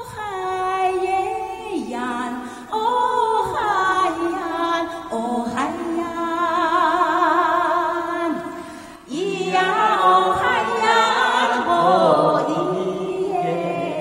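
Voices singing a slow melody in long held notes with vibrato, with a brief break about eight and a half seconds in.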